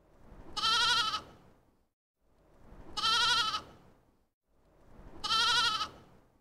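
A bleating farm animal calls three times, about two seconds apart. Each bleat lasts about a second and a half and has a shaky, quavering pitch, and the three are alike, as if one recording were played three times.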